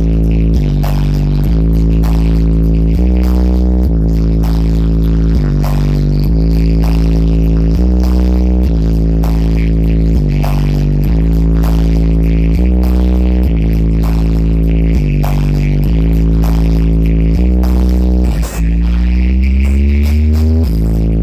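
Loud electronic music with heavy bass: deep bass notes shift pitch about once a second. Near the end it cuts out for an instant, then a rising pitch sweep builds.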